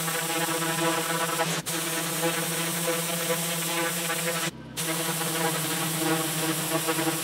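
Pressure washer running: a steady buzzing pump hum under the hiss of the water jet blasting the pavers, with a brief break about a second and a half in and a short gap about four and a half seconds in.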